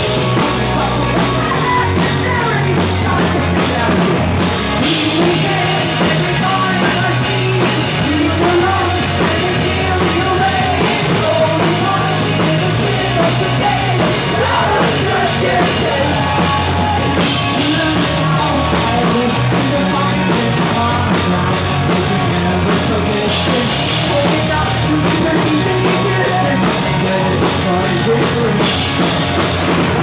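Live rock band playing loudly: a singer shouting and singing into a microphone over distorted electric guitars, electric bass and a drum kit.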